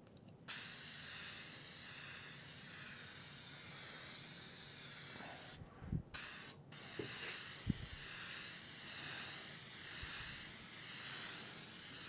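Aerosol spray adhesive hissing out of the can in a long steady spray, starting about half a second in and cut off twice briefly about halfway through, with two soft knocks around those breaks. The glue is being laid on to tack off for a contact bond.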